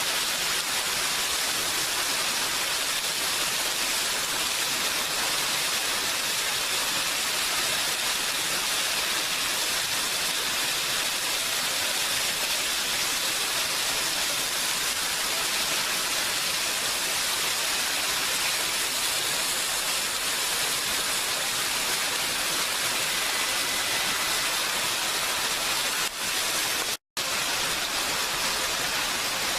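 Steady, dense rain hiss, even throughout, broken by a very brief cut to silence near the end.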